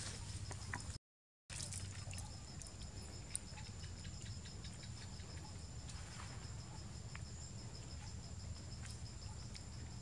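Insects trilling steadily outdoors: a continuous high whine with a faster pulsing trill just below it, over a low steady rumble. The sound cuts out for about half a second near the start.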